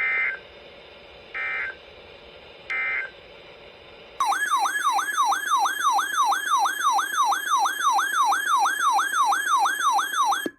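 Emergency Alert System data tones: three short, shrill digital bursts about a second and a half apart, marking a break between alert messages. Then a loud siren-like alert tone sweeping rapidly up and down, about three sweeps a second, which cuts off suddenly.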